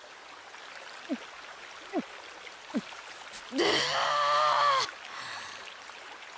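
A young woman's drawn-out moaning sigh, a little over a second long with a wavering pitch, about halfway through. Under it runs a steady sound of flowing water like a stream, with three short falling blips before the moan.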